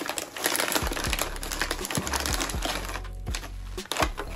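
Crinkling and rustling of a potato chip bag being handled, a dense crackle of quick clicks. A low steady hum joins it about a second in.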